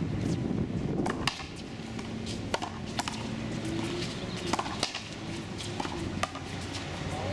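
Racquetball rally: a series of sharp cracks as the ball is struck by racquets and slams off the concrete front wall, about seven hits at irregular intervals.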